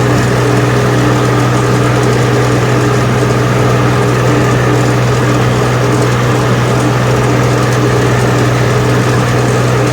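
Eicher 380 tractor's diesel engine running steadily, a loud even hum with no change in speed.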